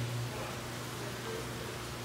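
Steady background hiss with a low steady hum, the room tone of a large indoor fish pond with its water circulating.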